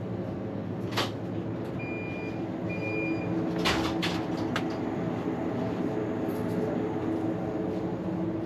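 Petrol station shop interior: a steady hum, a few sharp clicks and knocks, and two short electronic beeps about a second apart, about two seconds in.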